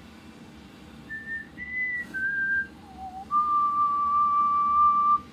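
A man whistling a short phrase: four brief notes jumping up and down in pitch, then one long steady note held for about two seconds.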